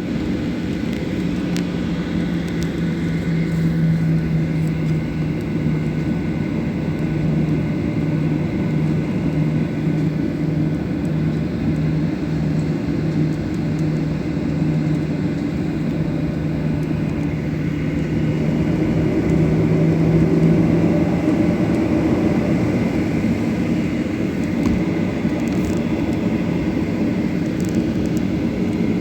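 Jet airliner engines running steadily at low power on the ground before takeoff, heard from inside the cabin as a constant rumble with a held hum that drops out about 21 seconds in.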